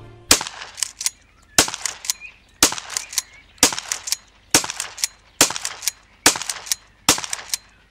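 Twelve-gauge Uzkon AS14 pump-action shotgun fired eight times in quick succession, about one shot a second, with smaller clacks between shots as the pump is worked.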